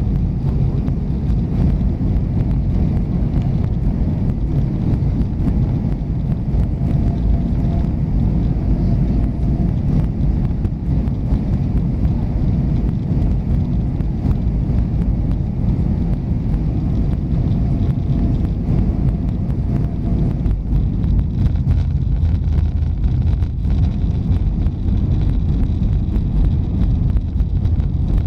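Airbus A320 cabin noise in flight: a steady low rumble of airflow and jet engines, with faint tones coming and going and a faint high whine joining in the later part.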